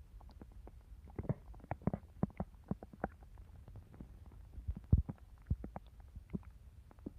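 A person's stomach growling: a fast, irregular run of short gurgles and pops, thickest early on and with the loudest pop about five seconds in.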